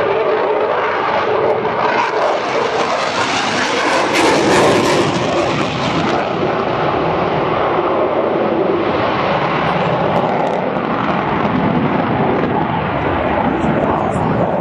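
Jet noise from a Eurofighter Typhoon's twin EJ200 turbofans during a low flying display: a loud, steady rush that turns brighter and harsher about four to five seconds in, then eases off slightly.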